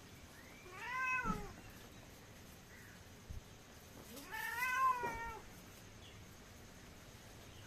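Tabby cat meowing twice while being mobbed by playful puppies: two drawn-out calls that rise then fall in pitch, the second longer and louder, with a soft thump between them.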